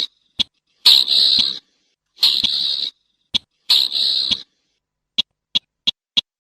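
Slaty-breasted rail calling: three harsh, rasping calls, each under a second, with single sharp ticks between them. Near the end comes a run of short sharp notes, about three a second.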